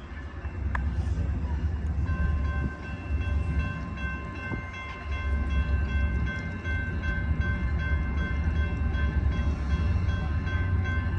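MPI MP36PH-3C diesel-electric locomotive with its EMD diesel engine working as the commuter train pulls out, a heavy steady rumble. From about two seconds in, several steady high tones ring over the rumble without a break.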